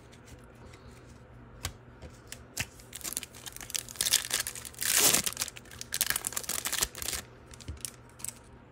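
Wrapper of a baseball trading card pack crinkling and tearing as it is opened, in a run of rustles from about three to seven seconds in, loudest about halfway through; a few light clicks before and after.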